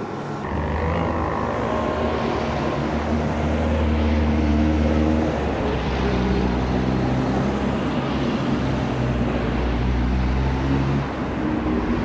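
A motor running with a steady low hum that starts about half a second in, shifting in pitch about halfway through and dropping back briefly near the end.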